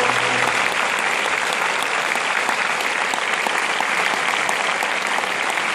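Opera house audience applauding, a dense, even clapping of many hands. The orchestra's last held chord dies out in the first half-second.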